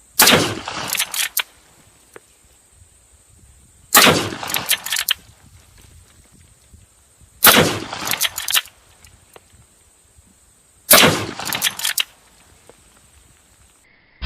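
Rossi .357 Magnum lever-action rifle fired four times, firing .357 Magnum rounds, about three and a half seconds between shots. Each loud shot is followed within a second by a short run of sharp clicks.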